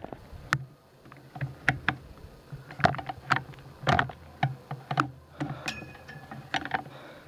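Irregular clicks, knocks and clatters of a bicycle being handled and set down, about a dozen sharp strokes spread over several seconds, over a steady low hum.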